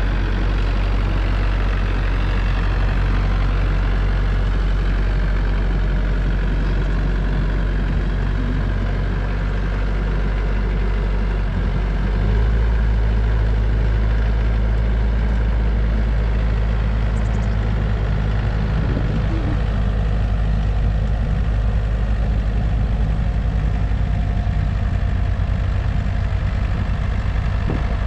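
Tractor engine running steadily under snow-blowing work. About twelve seconds in, its low hum steps up and gets louder, as with a change in revs or load.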